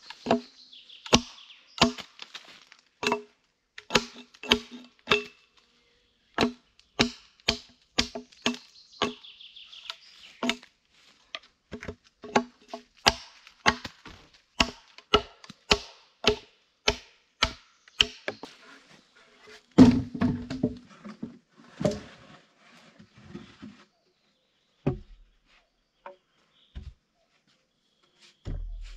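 An axe striking a standing wooden post, about two ringing knocks a second with short pauses, for some eighteen seconds. About twenty seconds in there is one heavier, deeper thud, then a few scattered knocks.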